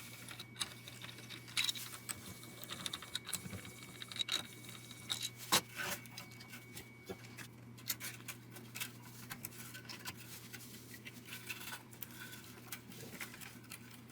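Small metal guitar hardware, such as bridge parts and strings, clinking and rattling in scattered light clicks as it is handled and taken off, over a steady low hum.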